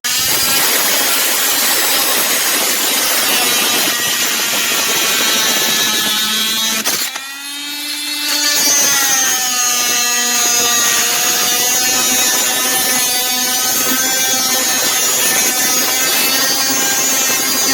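WorkPro 3.0-amp corded oscillating multi-tool running at speed and cutting, a loud buzzing whine that starts abruptly. About seven seconds in it briefly eases, then picks back up, its pitch sliding down and settling as it bears into the cut again.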